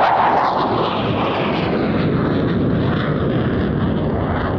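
Jet engines of an English Electric Canberra PR9 as it flies past overhead. A higher whine fades in the first second, leaving a steady, dense rumble.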